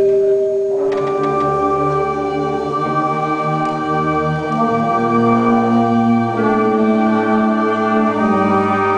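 High school symphonic band playing sustained wind chords, a fuller and higher chord entering about a second in, and the held notes shifting together every couple of seconds.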